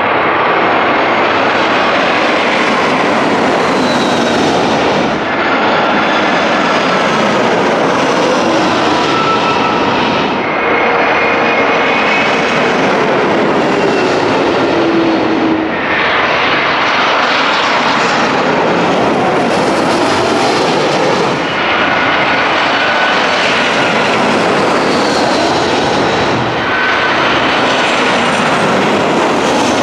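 Jet airliners on landing approach passing low overhead, one after another. Each pass is a loud engine rush with whining tones sliding down in pitch. The sound changes abruptly about every five seconds as one pass gives way to the next.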